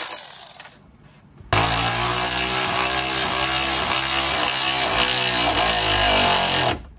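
Cordless electric ratchet driving a bolt: an earlier run dies away in the first second, then the ratchet starts about a second and a half in, runs steadily for about five seconds and cuts off near the end.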